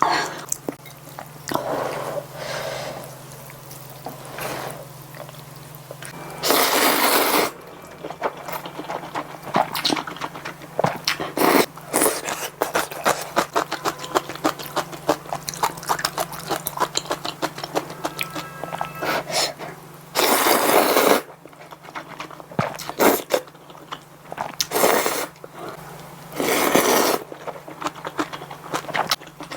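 Close-miked eating of spicy ramen noodles: wet chewing and mouth clicks throughout, broken by several loud, second-long slurps of noodles, the longest about six and twenty seconds in. A faint steady low hum runs underneath.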